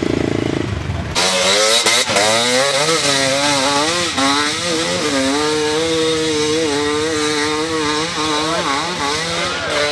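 A trail motorcycle's engine revving hard under load while climbing a steep dirt hill, its pitch rising and falling rapidly as the throttle is worked. A lower engine drone gives way to it about a second in.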